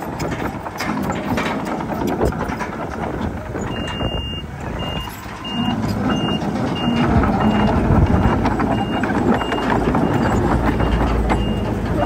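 A reversing alarm on heavy machinery beeping steadily, a little under twice a second after a longer first beep about four seconds in, over the diesel engines running. The engine rumble grows louder from about five seconds in.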